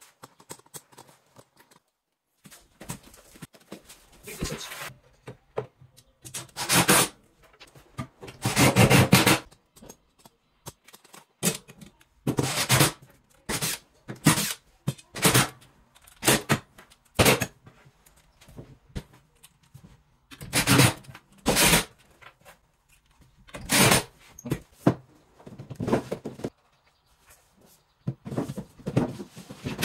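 Intermittent knocks, thunks and scraping from wardrobe parts and drawers being handled and fitted into an IKEA PAX cabinet, in short irregular bursts with pauses between.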